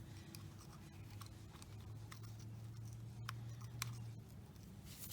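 Faint light clicks and scraping of a hand tool working a seized bearing cup out of a high-pressure waterjet swivel body, two sharper clicks a little after three seconds and near four seconds in, over a low steady hum.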